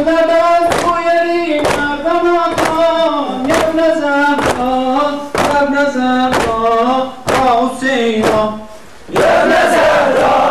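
A solo voice chanting a mourning lament for Imam Hussein over sharp rhythmic beats, about one a second. About nine seconds in, a crowd of many voices takes up a loud shouted chant in response.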